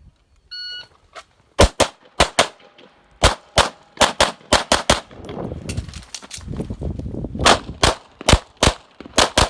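A shot timer beeps about half a second in, then a pistol fires a long string of shots, mostly as quick pairs.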